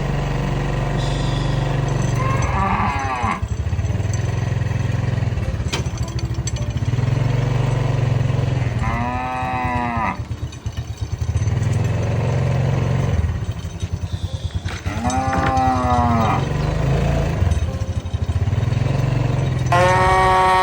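Cattle mooing: about four drawn-out calls several seconds apart, the last one higher-pitched and starting near the end. A small engine runs steadily underneath.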